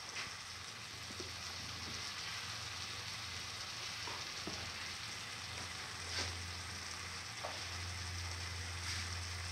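Minced chicken, fenugreek leaves and tomato-chili puree sizzling steadily in a frying pan, with a few faint ticks later on.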